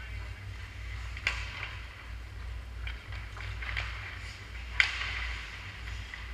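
Ice hockey play on a rink: skate blades scraping and hissing on the ice, broken by sharp clacks of sticks and puck, one a little over a second in and a louder one nearly five seconds in, over a steady low hum.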